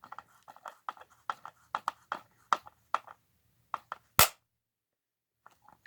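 Small plastic clicks and ticks, about a dozen in the first three seconds, then one sharper click about four seconds in, as a blade pries at the plastic shell of a Lear Jet 8-track tape cartridge to lift it off its pins.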